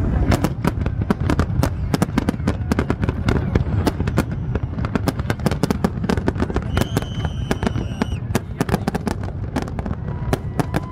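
Fireworks display, a dense run of rapid cracks and bangs over a low rumble. A high steady whistle sounds for about a second, about seven seconds in.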